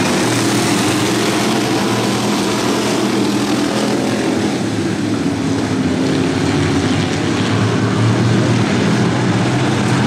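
A pack of dirt-track stock cars running at speed around the oval, their engines heard together as a loud, steady mass of engine noise.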